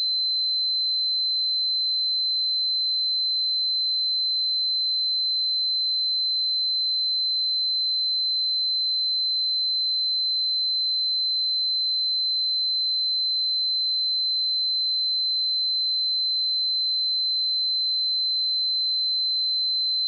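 A steady 4071 Hz sine-wave test tone, a single high-pitched pure tone held at constant pitch and level, used to check speakers and headphones.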